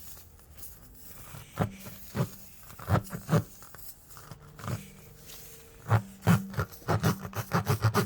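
Tire-plug reamer tool pushed and twisted in a nail hole in a tire, the rubber inside tearing and crunching: a string of rasping strokes, a few at first, then a quick run of them near the end.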